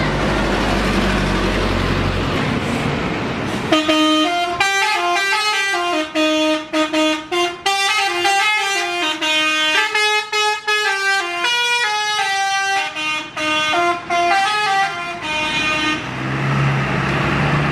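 Bus telolet horn playing a tune of short stepped notes for about eleven seconds. It starts after a few seconds of rushing noise with a low hum, and a low steady hum returns near the end.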